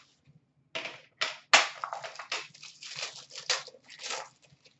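Foil wrapper of a hockey card pack from an Upper Deck Premier tin crinkling and rustling as it is handled and unwrapped, in a quick irregular run starting about a second in.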